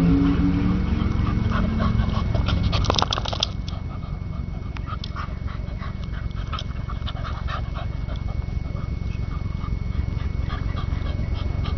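Two dogs play-fighting over a rubber ball toy: a low, pitched play-growl in the first two seconds, a burst of sharp clicks about three seconds in, then quieter scuffling with scattered light clicks.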